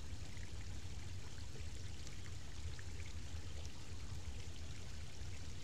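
Rocky stream running steadily: water pouring over a small cascade into a pool, an even rush with a low rumble underneath.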